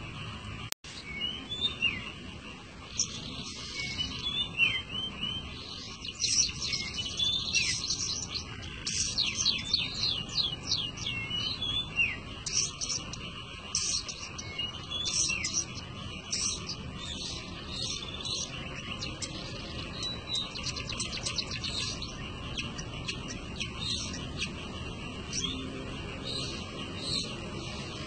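Long-tailed shrike (pentet) singing from its cage: a fast, varied run of sharp high chirps and short sliding whistled notes. It is busiest in the middle and thins out toward the end.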